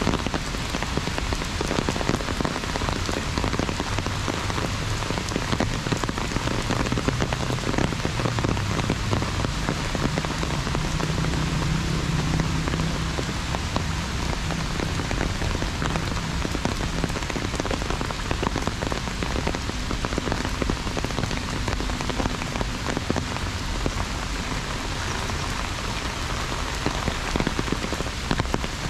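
Heavy rain falling steadily on an umbrella, a dense, even patter of many drops.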